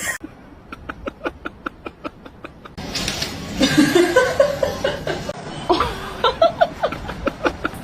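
A person laughing in quick repeated pulses, about five or six a second. The laughter breaks off for a noisier stretch in the middle with a voice in it, then starts again near the end.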